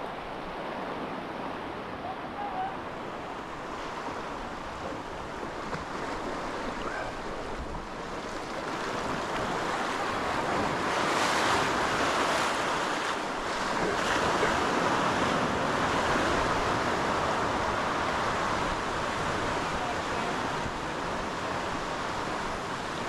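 Sea waves surging and breaking over a rock ledge, a steady wash of surf that grows louder about halfway through as a bigger wave breaks.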